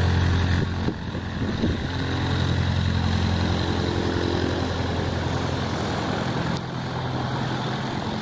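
Cessna 150's four-cylinder piston engine running steadily after start-up. It is a continuous low drone that drops slightly in level about a second in and again near the end.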